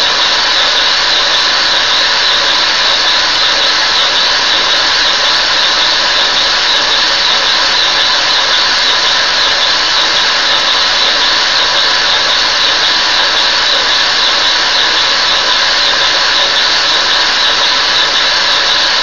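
Lego vibrating-lever engine with opposed double-acting pistons running fast on suction from a vacuum cleaner hose: a loud, steady rush of drawn air and motor noise, running smoothly with no knock.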